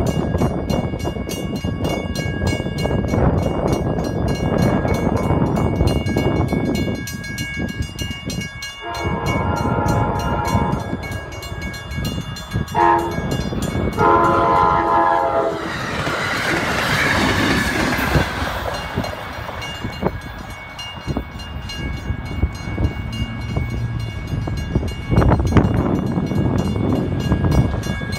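Grade-crossing bells ringing as an Amtrak shuttle train approaches. The train's multi-tone horn sounds a long blast, a short one and a long one, the grade-crossing warning. The train then passes through with a loud rumble and the clickety-clack of wheels on rail.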